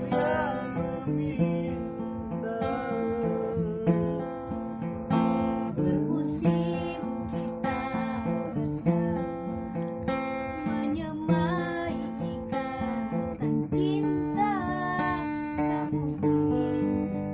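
Acoustic guitar strummed steadily through a song's instrumental passage, with chord changes and a melody line above it.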